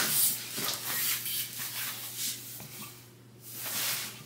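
Black fabric shower curtain rustling and scraping as it is handled and worked onto a shower rod, with a short lull just past the middle. A faint steady hum runs underneath.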